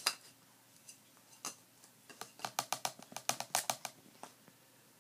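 Sharp light clicks: a few scattered ones, then a fast run of about a dozen over two seconds, starting about two seconds in.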